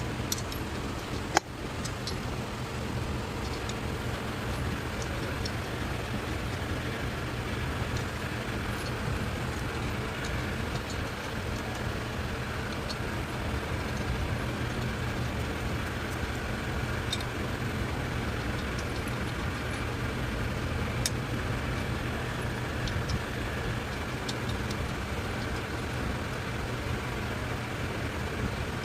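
A steady low mechanical hum, with scattered light clicks and a single sharp knock about a second and a half in.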